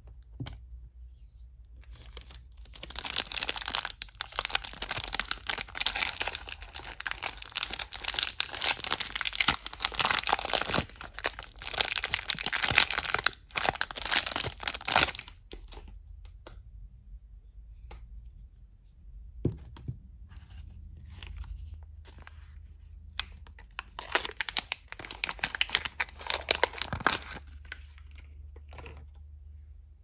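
Soap-bar wrappers being torn open and crumpled by hand: a long stretch of dense crinkling and tearing, then quieter handling with a few soft knocks, then a second, shorter burst of crinkling near the end.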